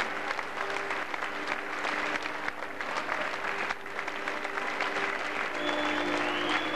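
A crowd applauding: many hands clapping steadily, with a few long, steady notes sounding underneath.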